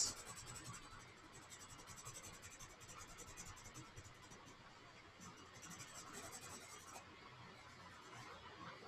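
Colored pencil scratching faintly on sketchbook paper in short, uneven shading strokes.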